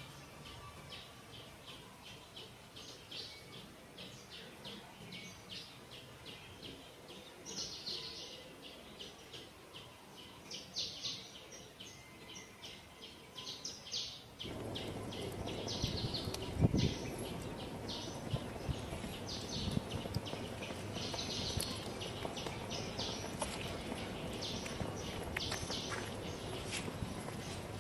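Small birds chirping over and over in short runs of high chirps. About halfway in, a louder steady low background noise comes up, and a single thump follows a couple of seconds later.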